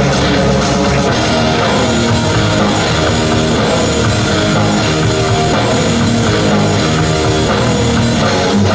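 Loud rock music with electric guitar and a drum kit.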